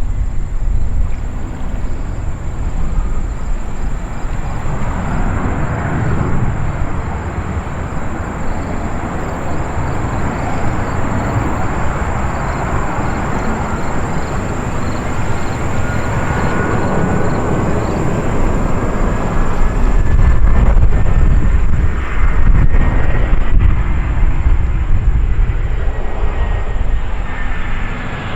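Jet airliner passing near the airport, a broad rumble that swells to its loudest about two-thirds of the way through, with a faint slowly rising whine in the second half.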